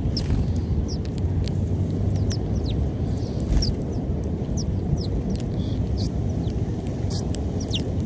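House sparrows chirping: short high chirps, about two a second, over a steady low rumble.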